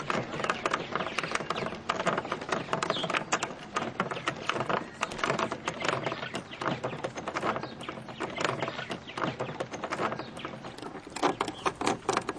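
Purple martin colony chattering: many birds giving rapid, overlapping croaks and gurgling calls, busiest near the end.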